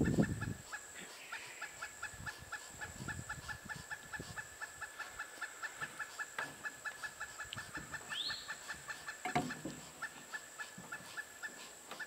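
Pileated woodpecker giving a long series of short, evenly spaced clucking call notes, about four a second, over a steady high insect buzz. There is a low thump right at the start, and a single short rising note about eight seconds in.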